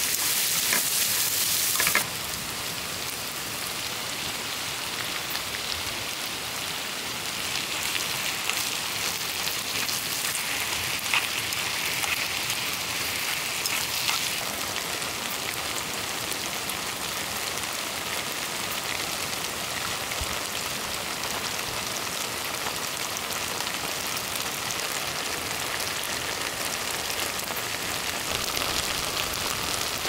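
Food frying in a pan, a loud sizzle that cuts off abruptly about two seconds in, leaving steady rain falling on surfaces, with a few light clicks.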